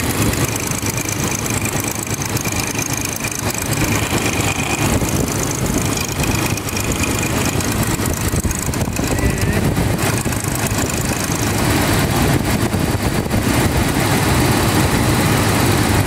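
Toyota 3.0-litre V6 engine idling steadily, with a thin high whistle coming and going. Its rough idle is put down to a vacuum leak at a vacuum hose.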